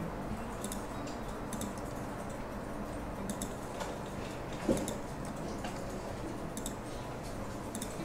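Computer mouse clicking: about half a dozen faint single clicks spread out over a steady low background hum, with one short louder low sound about halfway through.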